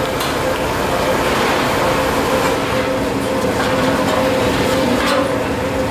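Steady hum of workshop machinery, an electric motor running with a constant pitched drone over a rumble. A few swishes of a cloth scrubbing across a steel sheet come through around the middle and near the end.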